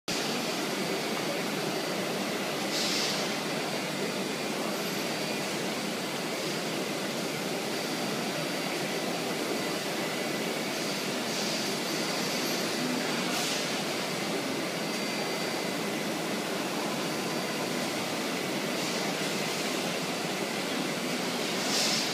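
PADE five-axis CNC machining centre running: a steady machine noise with a faint high steady whine, broken by a few short hisses.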